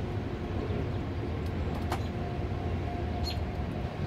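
Freight train rolling past a level crossing, its wagons making a steady low rumble.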